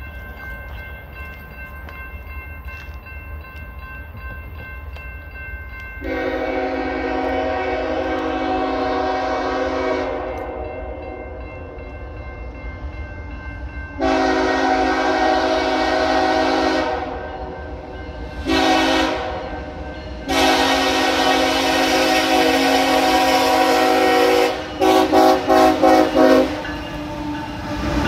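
Air horn of CSX's Chessie heritage locomotive 1973, leading a freight train toward a grade crossing, blowing the crossing signal: long, long, short, long. A quick string of short toots follows, then the locomotive passes with a rumble at the end.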